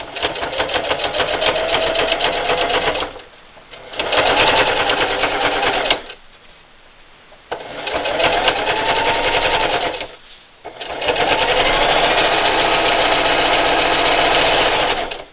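Electric sewing machine zigzag-stitching in four separate runs, stopping and starting as the binding is eased around a corner. Each run opens with the motor whine rising in pitch, with short pauses between runs.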